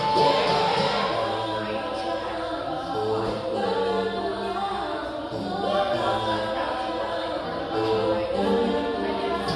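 Music with sung vocals: held notes that move from one pitch to the next at a steady level.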